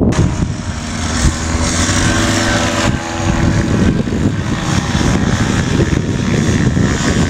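Paramotor engine and propeller running at high power, a loud steady drone, during a running takeoff.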